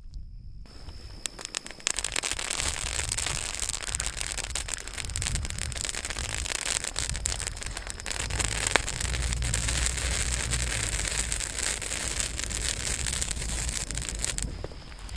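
Campfire crackling and popping steadily, starting suddenly just under a second in and stopping suddenly near the end, with a low rumble underneath.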